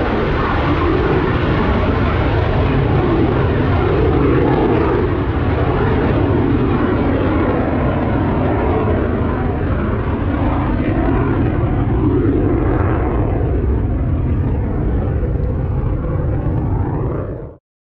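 Airplane in flight overhead, a steady dense engine noise that slowly grows duller as the higher part of it dies away; it cuts off abruptly near the end.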